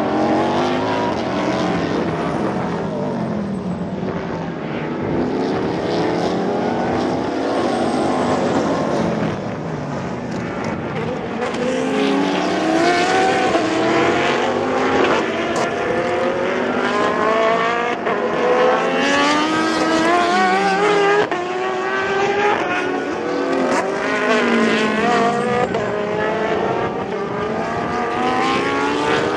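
Several sports racing cars, prototypes and GT cars, slowing into a tight corner and accelerating out, their engines rising and falling in pitch through the gears as one car after another passes and overlaps.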